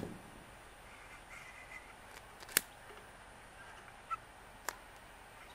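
Quiet background broken by one sharp click about two and a half seconds in and two fainter clicks near the end, from a long-nosed butane lighter being clicked to light a kerosene lantern's wick.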